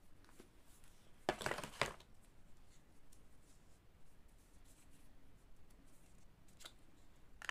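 Apple Watch packaging being torn and crinkled open in a short rustling burst about a second and a half in, followed by a few faint handling clicks.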